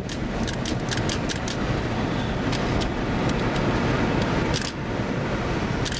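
Steady rumble of a car heard from inside, with scattered sharp clicks and taps, several in quick succession in the first second and a half.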